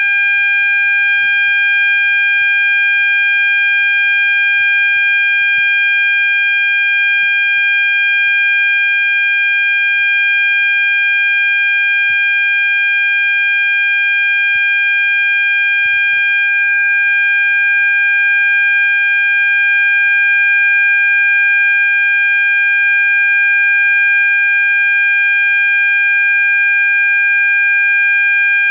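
Gentex GOS sounder strobe sounding its 800 Hz continuous tone on its low-volume setting: one steady, unbroken tone.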